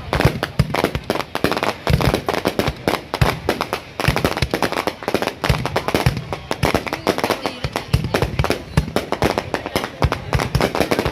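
Fireworks going off in a rapid, continuous barrage of sharp bangs and crackles, many with a deep boom.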